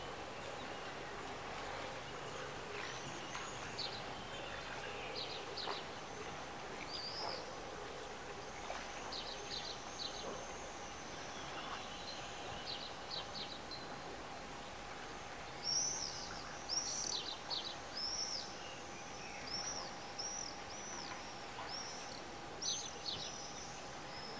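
Birds chirping: short arching chirps repeated over and over, busiest in the second half, over a steady outdoor background hiss and a faint steady tone.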